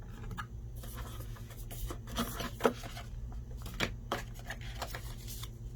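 Handling noise as the video doorbell is turned over in the hands: scattered light clicks and rustles over a low steady hum.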